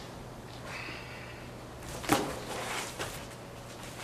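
Cardboard and plastic wrap rustling and scraping as boxed tools are handled on a pallet, loudest about two seconds in, over a steady low hum.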